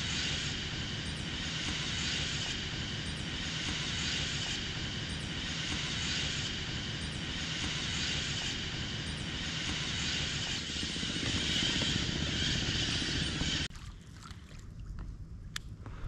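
Strong wind blowing, a steady rushing through the mangrove foliage with low buffeting on the microphone. It drops away abruptly near the end.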